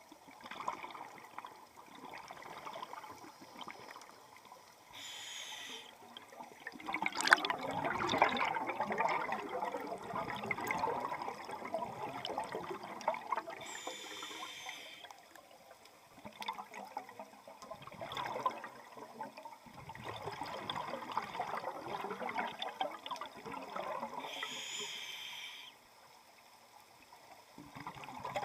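Scuba regulator breathing underwater: a short hiss on each inhale, three times about ten seconds apart, each followed by several seconds of gurgling exhaled bubbles.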